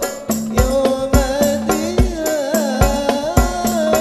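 Hadroh ensemble playing sholawat: rebana frame drums slapping a quick pattern with deep bass-drum strokes about twice a second, under a man's wavering sung melody.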